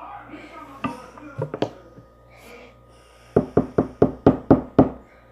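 A raw egg tapped repeatedly against a hard edge to crack it: a few light taps, then a quick run of about seven sharp knocks, the shell not yet breaking.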